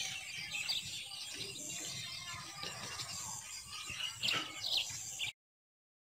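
Small birds chirping in short repeated calls, a few louder ones about four to five seconds in, over a low background rumble. The sound cuts off suddenly about five seconds in.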